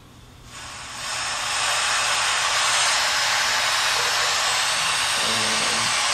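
Loud, steady static hiss from a spirit box radio sweep, swelling in about half a second in and then holding even.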